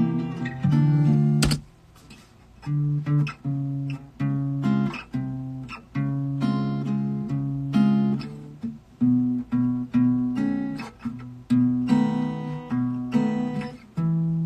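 Acoustic guitar strummed in chords, with a sharp stroke and a short stop about a second and a half in, then a run of chord strokes.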